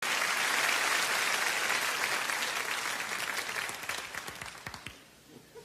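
Audience applauding, the applause thinning to scattered last claps and dying away about five seconds in.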